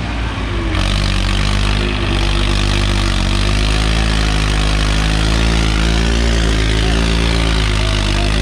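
Swaraj 855 tractor's three-cylinder diesel engine running steadily under load, its pitch held nearly constant with slight wavering, while the tractor spins on its rear wheels with the front end lifted.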